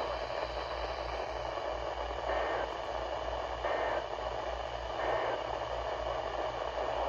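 Weather radio receiver static: a steady hiss over a low hum, swelling briefly three times.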